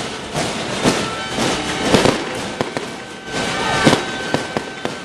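Firecrackers going off in a string of irregular sharp bangs.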